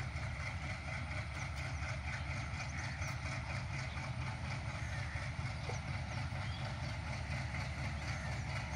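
Diesel-electric locomotive's engine running with a steady low rumble as it slowly approaches at the head of a loaded oil tank-wagon freight train.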